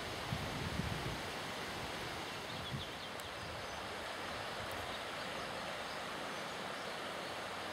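Steady rushing of the river Sioule flowing, with a few brief low thumps in the first second and one more a little under 3 seconds in.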